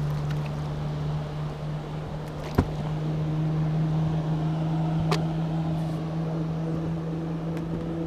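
Boat motor running with a steady hum. A sharp knock comes about two and a half seconds in and a lighter click about five seconds in.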